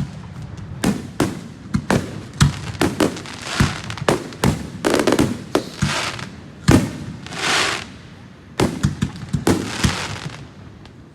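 Fireworks going off in a rapid, irregular string of sharp bangs and pops. Around the middle, two longer stretches of crackling hiss ring out, one about five seconds in and one about seven seconds in.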